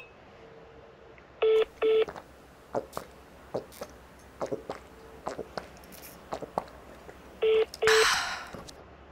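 A phone call on hold heard through the phone's speaker: a short double beep about a second and a half in and again about seven and a half seconds in, with faint clicks on the line. A loud rushing hiss comes just after the second double beep.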